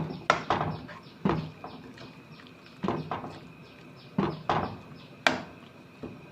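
Kitchen utensils and dishes knocking and clinking, about nine irregular sharp strikes, each with a short ring. The loudest strike comes about five seconds in.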